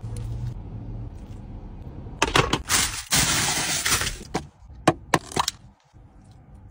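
Aluminium foil crinkling and crackling loudly for about two seconds, followed by a few sharp separate clicks.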